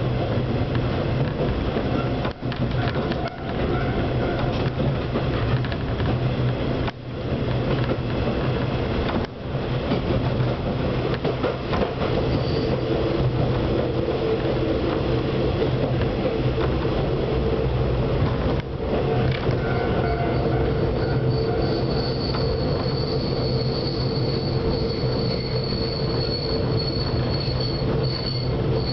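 Diesel railcar running, heard from inside the cabin: a steady low engine drone over wheel and rail noise, with a few brief dips. About two-thirds of the way through, a high, thin squeal joins in and holds.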